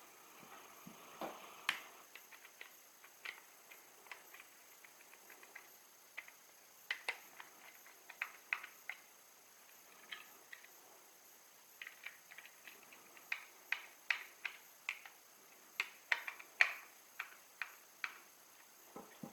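Irregular series of small, sharp clicks and taps of hard parts being handled, a few to several a second with short pauses, over a faint steady hiss.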